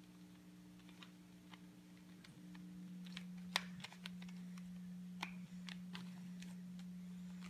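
Irregular plastic clicks of a 2x2 mirror cube's layers being turned by hand, over a steady low hum.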